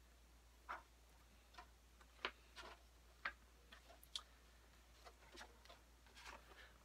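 Near silence broken by a scattering of faint short ticks and rustles: a hardcover picture book being opened and its pages turned by hand.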